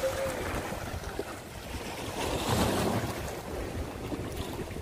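Sea waves breaking and washing over shoreline rocks, with wind buffeting the microphone. A surge of wash swells and peaks about two and a half seconds in.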